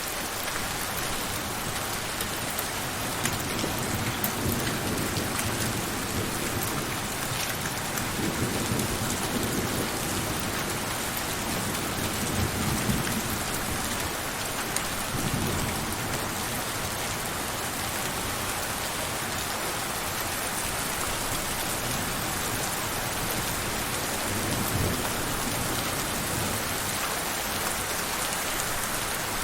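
Steady rain falling, an even hiss of drops, with low rumbles of thunder that swell between about 4 and 16 seconds in and again briefly near the end.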